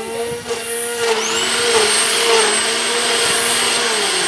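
Grass trimmer motor running with a steady whine; its high tone sweeps up in pitch about a second in, as the motor speeds up.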